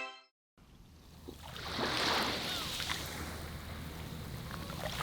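Seaside ambience: the hiss of surf on the shore, swelling about two seconds in and again near the end, after a brief silence at the start.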